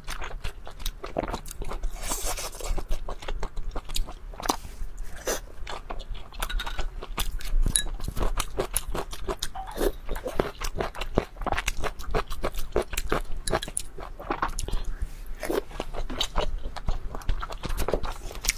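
Close-miked eating: biting and chewing, a dense irregular run of short clicks and smacks.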